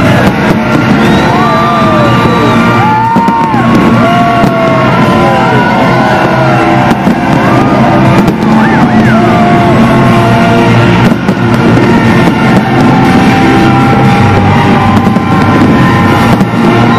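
Loud music playing over a fireworks display, with several sharp firework bangs breaking through every few seconds.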